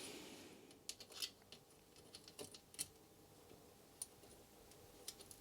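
Faint, scattered light clicks and ticks of steel spokes and spoke nipples knocking against the rim and hub as a bicycle wheel is laced, about half a dozen spread irregularly through otherwise near silence.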